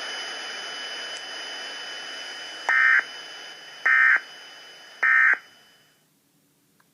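Emergency Alert System end-of-message signal played through a TV speaker: three short bursts of warbling digital data tones about a second apart, marking the end of the alert. They sound over a steady hiss with a thin high whine, which fades out near the end.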